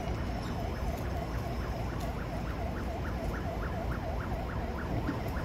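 Street ambience: a steady low traffic rumble with a faint, rapid repeating chirp, about five a second.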